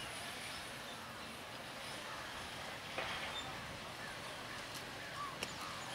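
Crowd hubbub from many people talking at once, with a few short bird-like chirps over it.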